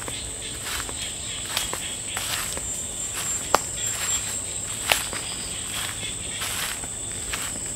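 Footsteps on dry leaf litter along a woodland path, irregular soft crunches with two sharper snaps, one about three and a half seconds in and one near five seconds. Behind them, insects keep up a steady high-pitched drone.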